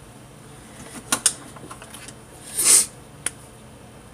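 Light handling clicks and taps as cat-eye eyeliner stencils are picked up and positioned: two sharper clicks about a second in, a few small ticks after them, a short rustling hiss a little past halfway, and one more click later.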